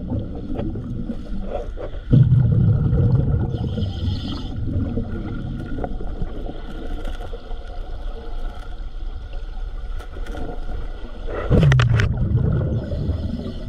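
Underwater sound of a diver breathing from a hose-fed air supply: two loud bubbling rushes of exhaled air, about two seconds in and again near the end, and a short hiss between them. A steady faint hum runs underneath.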